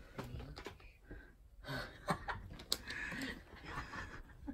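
A person's soft breathy gasps and breaths close to the microphone, with a few faint clicks.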